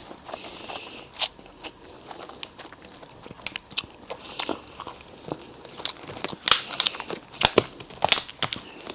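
Close-up eating sounds of a person chewing imitation crab sticks: irregular short wet clicks of the mouth and food, a few each second, growing busier in the second half.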